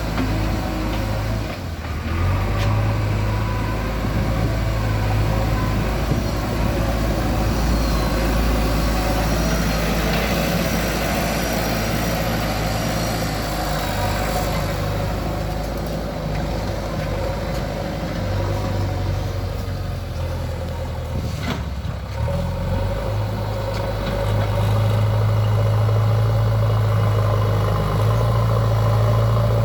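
JCB 3DX backhoe loader's diesel engine running steadily under work, with brief dips and a rise in engine note and loudness about three-quarters of the way through.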